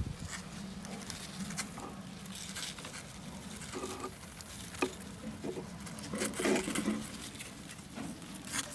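Soft rustling of hay and fur in a rabbit nest box, with scattered light ticks and taps, over a faint steady low hum.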